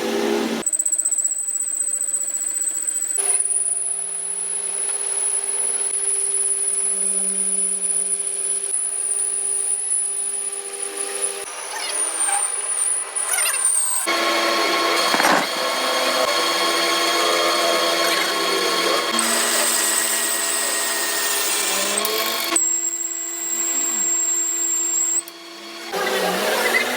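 Workshop power tools and machinery running with steady whines and hums, in several short clips that cut abruptly from one to the next.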